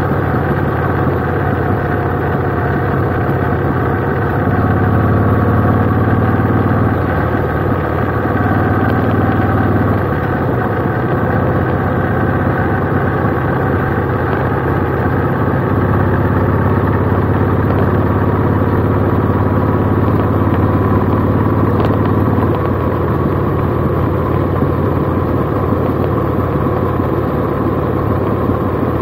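Cruiser motorcycle engine running under way, heard close from a camera on the bike, a steady drone that swells louder three times for a few seconds each.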